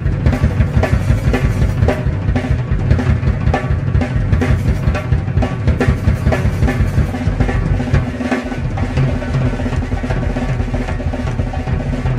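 Rock drum kit played in a live drum solo: very fast, continuous kick drum strokes under rapid snare and tom fills and cymbal hits. The kick drops out briefly about eight seconds in.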